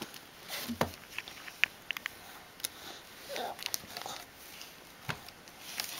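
Scattered light taps and clicks with soft rustling, as a toddler handles a cardboard board book and shifts about; the sharpest clicks come about one and one and a half seconds in.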